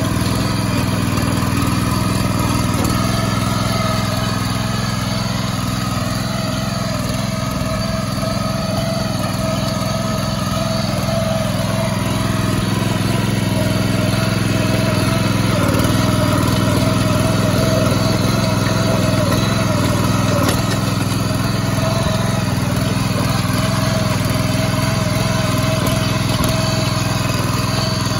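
VST Mestro 6.5 hp power weeder's small single-cylinder petrol engine running steadily under load, its rotary tines churning wet, muddy soil. The engine note wavers slightly in pitch as the load changes.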